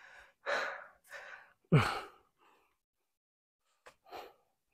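A hiker breathing hard from an uphill climb: a quick run of heavy exhales, one of them voiced as a sigh that falls in pitch about two seconds in, then a short pause and a softer breath near the end.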